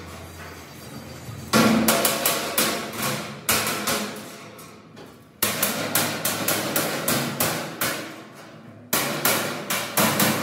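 Hammer striking the sheet-steel panels of a box-shaped truck fuel tank, in runs of quick blows several a second with short pauses between them.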